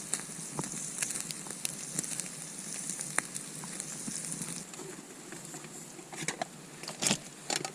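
Steak sizzling over a campfire: a steady frying hiss with scattered pops and crackles, easing slightly about four and a half seconds in, and a sharper knock near the end.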